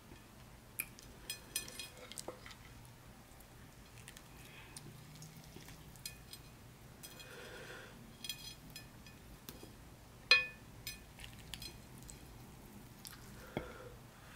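Close-up eating sounds of fingers with long acrylic nails handling saucy beef and bone pieces on a ceramic plate: small wet squishes and scattered light clicks, with one sharper clink about ten seconds in.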